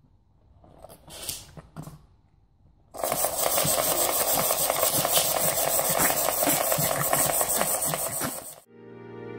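A pug rubbing and pushing its face through a shaggy rug: a loud, dense scratchy rustle that starts suddenly about three seconds in and goes on for about six seconds, then stops abruptly.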